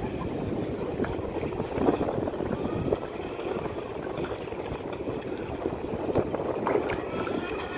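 Shallow water sloshing and lapping close by, with the faint, rising and falling whine of a Vector SR80 RC speedboat's electric motor running at speed.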